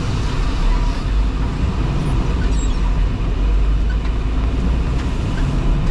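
Steady low drone of a truck's engine and tyres heard inside the cab, with heavy rain washing over the windshield.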